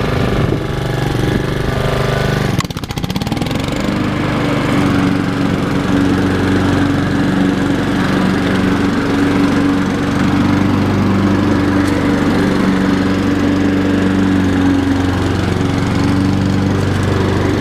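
Honda HRR216 walk-behind lawn mower's single-cylinder engine running steadily while mowing grass, with a brief dip in its sound about three seconds in.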